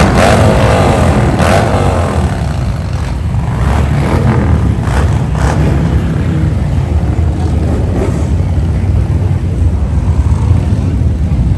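Motorcycle engines rumbling in the street, with a rev that rises and falls in the first couple of seconds.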